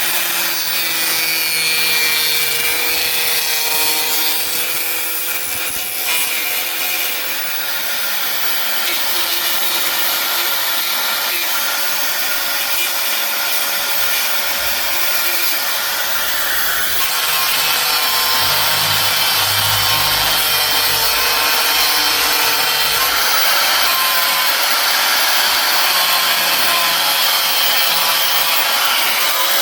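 Handheld electric power tool running continuously as it works against a part, its motor tone wavering slightly under load; the sound grows fuller and heavier about seventeen seconds in.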